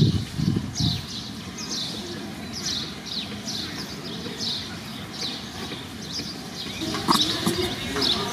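A bird calling: short, high, falling chirps repeated about twice a second. A brief lower animal sound with a click comes about seven seconds in.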